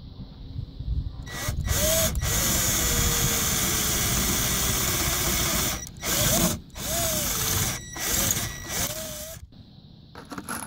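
Cordless drill running against a metal Z-bracket on a concrete block, fixing a solar panel down: one long steady run, then three short trigger bursts, each spinning up with a rising whine. Near the end, small plastic-headed screws rattle in a plastic box.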